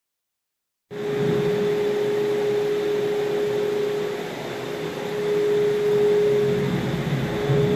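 Pickup truck engine idling in an enclosed garage bay. It starts abruptly about a second in as a steady whine over a low rumble.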